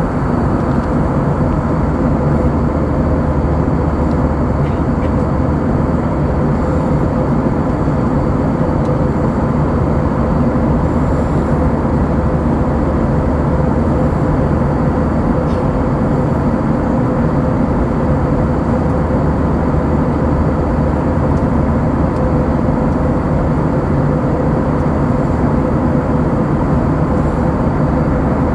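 Steady roar of an Airbus A321-200's jet engines and rushing air, heard from inside the passenger cabin, with a constant hum running through it.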